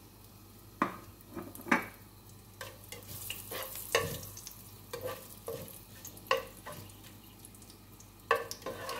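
Whole spices (bay leaves and cinnamon) frying in hot oil in a nonstick pot with a faint sizzle, while a wooden spatula stirs them, knocking and scraping against the pot about once a second.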